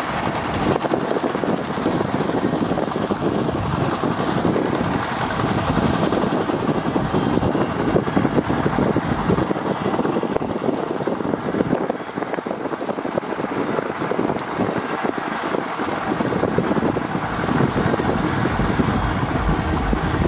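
Single-cylinder diesel engines of two-wheel walking tractors running steadily under load as they drag harrows through a flooded rice paddy, mixed with wind noise on the microphone.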